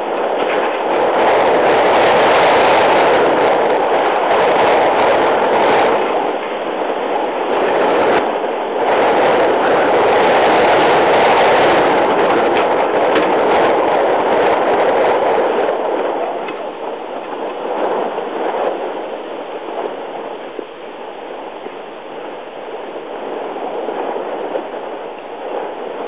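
Open game-drive vehicle on the move: steady engine and road noise with no distinct tones, louder for the first half and easing off about two-thirds of the way through.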